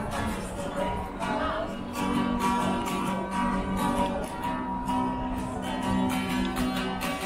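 Music with a strummed acoustic guitar: repeated strums over held notes.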